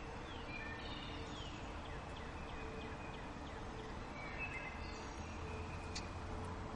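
Songbirds chirping and singing in quick short notes, some sliding down in pitch, over a faint steady outdoor hiss. There is a single sharp tick about six seconds in.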